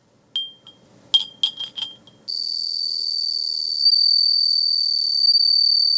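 A glass Edo fūrin wind bell rings in a few short rings, its clapper rubbing the jagged rim of the opening. A little past two seconds in, a steady high cricket trill takes over.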